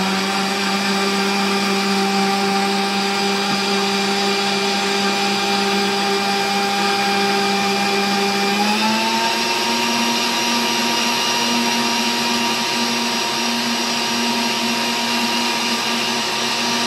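Countertop electric blender running at medium speed, whipping pisco, lime juice, gum syrup and egg white into a froth. A steady motor hum whose pitch steps up a little about halfway through.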